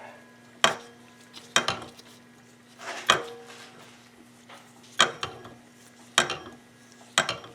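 Sharp metallic taps on a seized, rusty snowmobile oil pump as its parts are knocked loose, about six separate strikes roughly a second apart, each with a brief ring.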